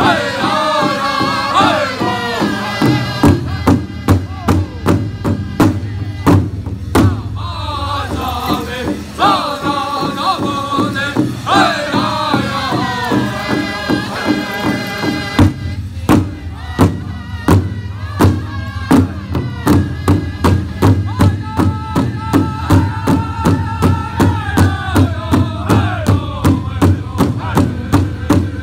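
Powwow drum group singing around a large shared drum: a loud, steady unison drumbeat under high-pitched group singing in phrases that fall in pitch, with short breaks between phrases.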